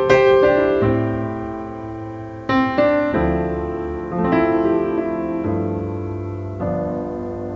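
Intro music of held keyboard chords that change every second or so over a low bass note.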